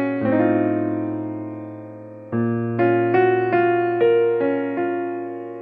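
Background music: an electric piano playing, a chord held and fading for about two seconds, then a melody of struck notes.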